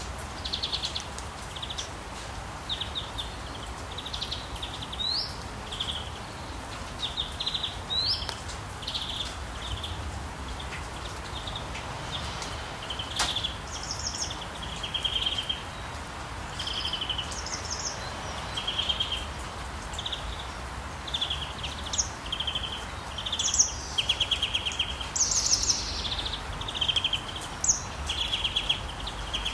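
Forest birds calling over and over in short, quick trilled phrases, some higher-pitched chirps mixed in, over a steady background hiss and low rumble.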